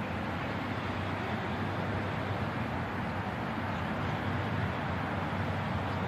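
Urban park ambience: a steady, unbroken wash of road traffic with a low rumble, with no single event standing out.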